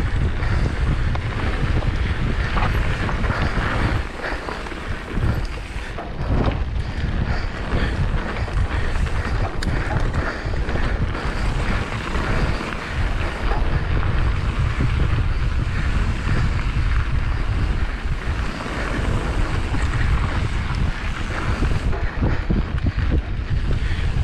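Wind buffeting the microphone of a camera on a moving mountain bike, a steady rumble with a few brief knocks.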